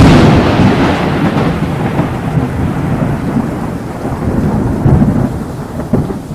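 A loud crash at the start, followed by a long low rumble with a hissing top that slowly fades, swelling again twice near the end.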